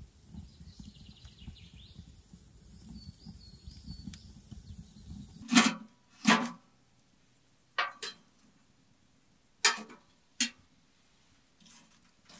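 Low rumble with faint crackle from a newly lit fire in a steel camp wood stove, with a few faint chirps. About halfway this stops abruptly and gives way to about eight sharp metallic clanks, spaced irregularly, as the burning wood is shifted with a metal fire tool against the stove's steel firebox.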